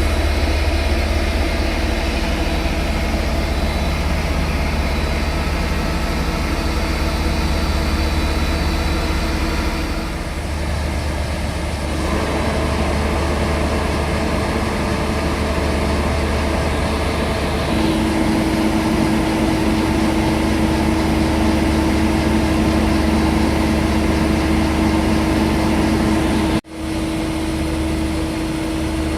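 V/Line N class diesel-electric locomotive N451 idling, its EMD two-stroke V12 giving a steady engine drone whose pitch shifts slightly a couple of times. The sound breaks off for an instant near the end and then carries on.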